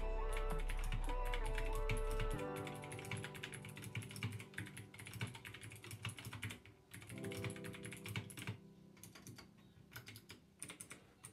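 Fast typing on a GK61 60% mechanical keyboard with Gateron Blue switches: a dense run of sharp, clicky keystrokes. Background music with held notes plays under it in the first couple of seconds and again about seven seconds in.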